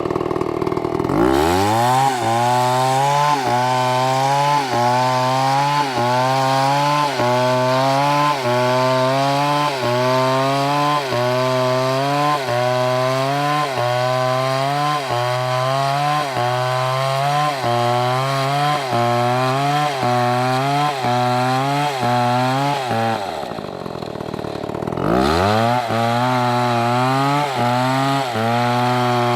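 Chainsaw revving up from idle and cutting a dead palm trunk at full throttle, its pitch dipping and recovering about once a second as the chain bites. Near the end it drops toward idle for about two seconds, then revs up and cuts again.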